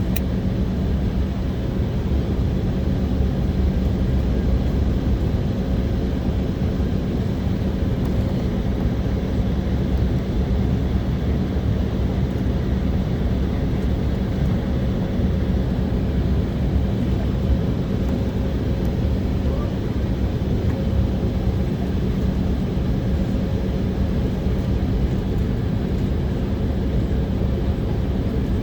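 Steady drone of the Embraer 190's GE CF34-10E turbofan engines heard inside the cabin, a constant rush with an even hum underneath and no change in pitch.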